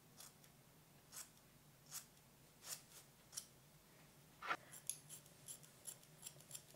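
Hairdressing scissors snipping through hair as she trims it, in short sharp snips. About one a second at first, then a quicker run of snips in the last two seconds.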